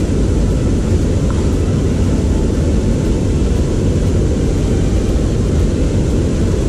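A loud, steady low rumble of noise that runs on evenly, with no separate knocks or calls in it.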